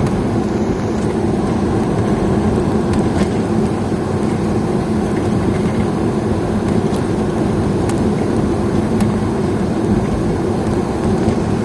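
Motor vehicle running on the road, a steady engine drone with road noise.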